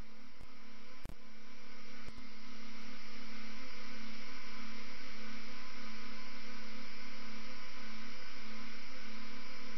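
Steady electrical hum with hiss from a live-stream audio feed. A few clicks and brief dropouts come in the first two seconds, then it settles to an even level.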